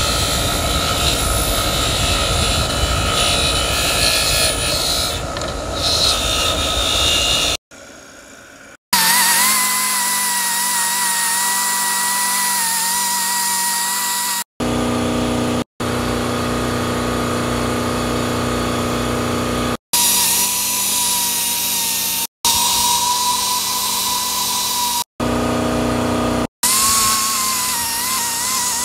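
A small high-speed rotary grinder whines as it spins a cleaning disc against the gasket face of a cast turbo flange, its pitch wavering as it is pressed on. The sound cuts off and restarts abruptly several times. The first several seconds are a harsher, noisier grinding.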